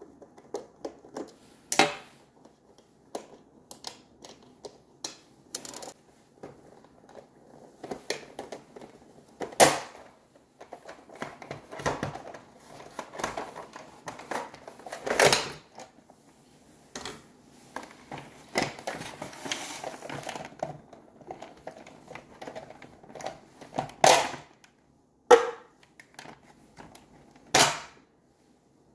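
Plastic housing of a SodaStream soda maker being handled and pried apart: irregular clicks, knocks and rattles, with several louder sharp knocks scattered through.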